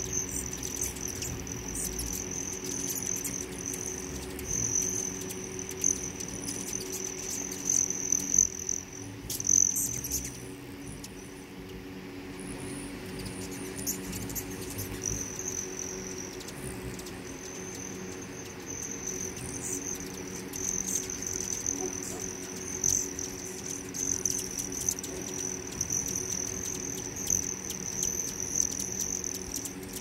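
Hummingbirds whirring around feeders, with a few sharp chips about eight to ten seconds in, over a steady high-pitched insect-like trill that breaks off briefly now and then.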